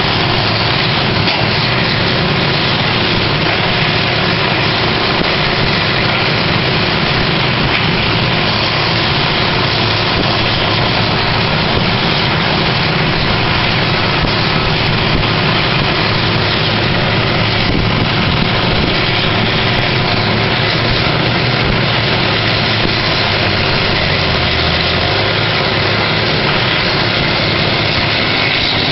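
Horizontal wood grinder and excavator running steadily, their diesel engines making a loud, unbroken drone with no pauses.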